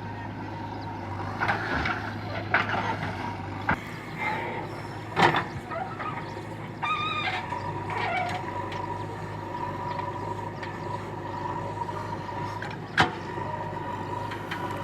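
JCB 3DX backhoe loader's diesel engine running steadily with a constant whine, broken by sharp metallic clanks, the loudest a little past five seconds and near the end. There is also a short squeal about seven seconds in.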